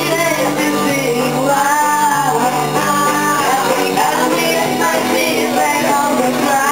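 A woman singing a song into a handheld microphone, holding long, bending notes, over an accompaniment of sustained low notes.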